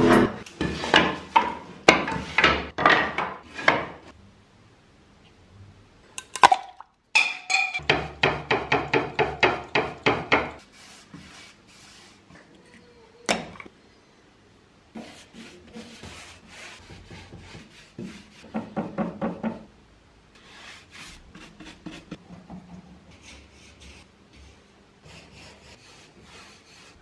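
Hand plane shaving a wooden board in a series of rasping strokes, about two a second, loudest in the first few seconds. A quicker run of strokes follows about eight seconds in, then quieter scattered workshop handling noises.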